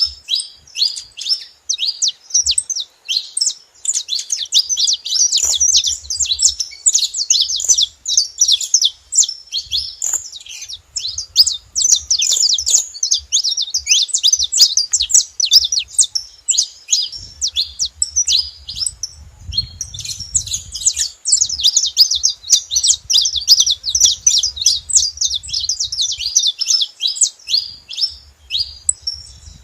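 Several saffron finches chirping and singing together: a dense, almost unbroken run of rapid high notes.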